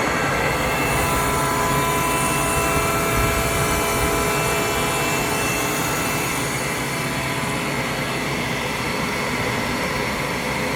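Kaeser AS25 25 hp rotary screw air compressor running: a steady mechanical noise with a whine of several steady tones that comes in about a second in and fades out around halfway.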